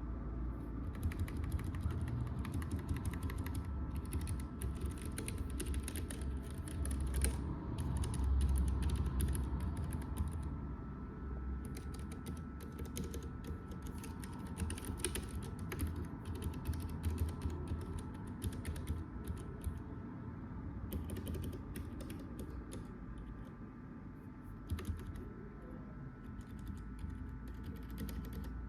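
Typing on a Keychron K7 low-profile mechanical keyboard: quick runs of key clicks, with short pauses about ten and twenty seconds in, over a steady low hum.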